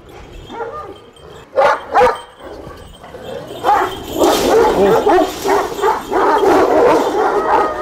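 Kangal shepherd dogs barking from their kennel pens. Two single barks come about a second and a half in, then from about three and a half seconds many dogs bark at once in an overlapping chorus.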